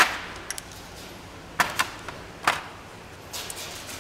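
A few sharp metallic clicks and knocks as a stock Toyota 86 open differential, removed with its ring gear still bolted on, is handled and turned over a metal parts tray, and a steel ring is set down on the tray. The knocks come singly at first, then as a quick cluster near the end.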